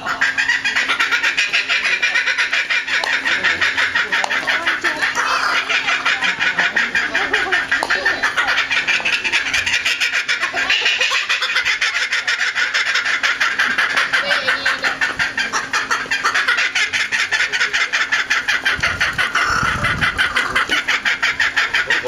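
Laughing kookaburra giving its laughing call: a long, loud, unbroken run of rapid chuckling notes that sounds like human laughter.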